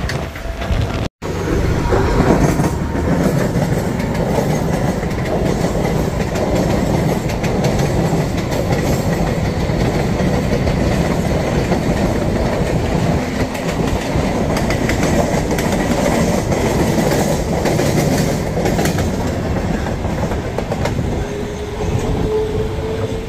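Mumbai suburban electric local train running at speed, heard from its open doorway: a steady noise of wheels running over the rails. The sound cuts out briefly about a second in.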